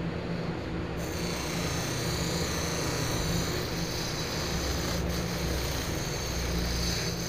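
Electric bench buffer motor running with a steady hum while stainless steel trim is pressed against its buffing wheel; a hiss from the wheel rubbing the metal comes in about a second in and stays steady.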